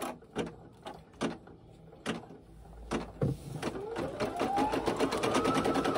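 Brother PE800 embroidery machine starting a stitch-out: a few separate clicks and knocks, then from about halfway a motor whine that rises in pitch as the needle speeds up into a fast, even stitching rhythm.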